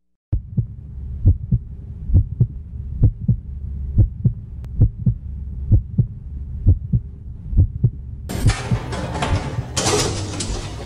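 Heartbeat sound effect: paired low thumps a little under once a second over a low steady drone. About eight seconds in, a loud rushing noise swells over it, peaks and then fades.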